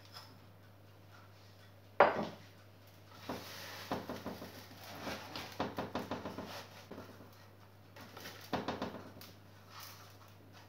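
Coarse salt crunching and pattering as hands press it over whole fish on a metal baking tray, in scattered bursts of short crackles. A sharp knock sounds about two seconds in, with a faint steady hum underneath.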